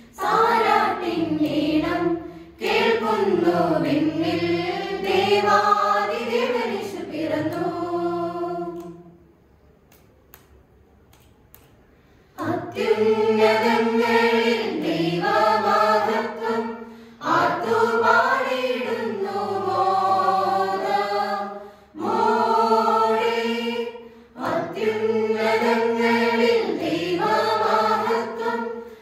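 Church choir of mostly girls' and young women's voices with a few men, singing a hymn together in long phrases. The singing stops for about three seconds partway through, then resumes.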